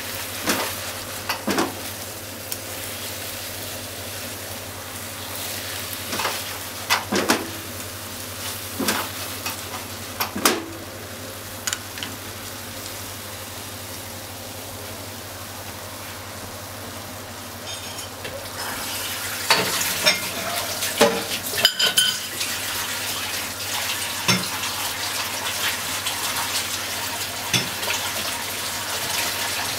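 Okra, thick fried tofu and green onion sizzling steadily in a frying pan, with scattered sharp clacks of a utensil knocking against the pan. The sizzle grows louder about two-thirds of the way through.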